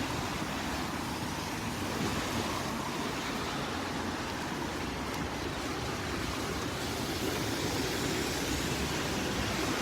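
Steady rushing outdoor noise with no distinct events, growing a little louder after about seven seconds.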